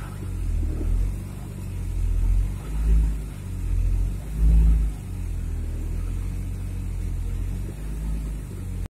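Car engine running in deep frost, revved in four short swells in the first five seconds, then held at a steady run until the sound cuts off abruptly near the end.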